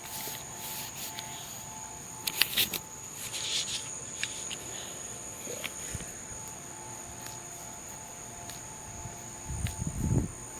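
Insects calling steadily outdoors, a continuous high-pitched chorus, with a few brief clicks about two seconds in and a low rumble near the end.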